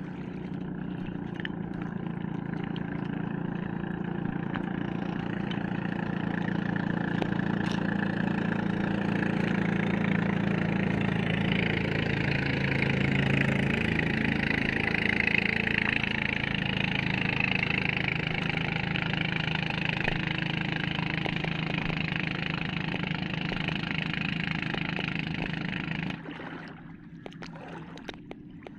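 An engine running steadily under a rushing hiss, which stops abruptly near the end.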